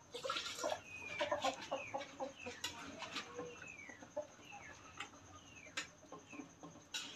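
Chickens calling with short falling chirps and clucks. Sharp clinks of a metal ladle against a cooking pot sound throughout.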